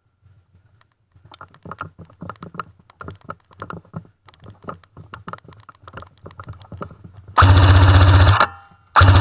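Airsoft M60 electric gun firing two full-auto bursts near the end, each about a second long, a fast even buzz of shots from its gearbox. Before that come scattered light clicks and knocks.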